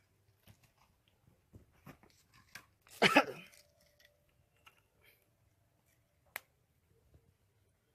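Firewood and kindling being handled while a bonfire is laid: scattered light clicks and cracks, a loud crunchy burst about three seconds in, and one sharp snap a little after six seconds.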